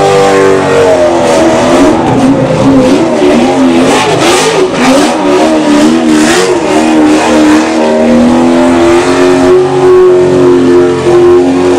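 Hoonicorn's 845 hp V8, in an all-wheel-drive 1965 Ford Mustang, revving high through a tyre-smoking donut, with the hiss of spinning tyres underneath. The engine pitch wavers up and down with the throttle for several seconds, then holds high and steady.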